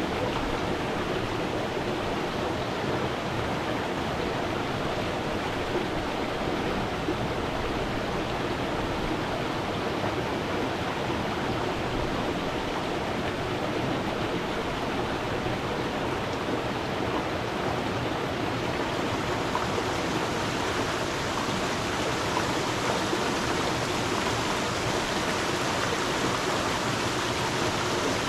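Stream water flowing and splashing in a steady rush. About two-thirds of the way through the sound turns brighter and hissier.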